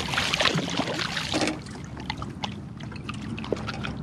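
Water splashing and dripping, busiest in the first second and a half, then lighter drips with a few small knocks.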